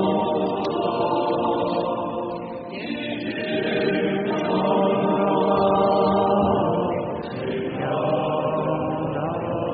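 Several voices singing liturgical chant in long, held notes, with short breaks about two and a half and seven and a half seconds in.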